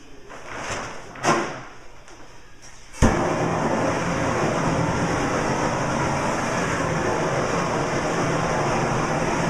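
After two brief swishes, a propane heat-shrink gun is lit with a sharp click about three seconds in and then runs with a loud, steady rushing hiss of burning gas.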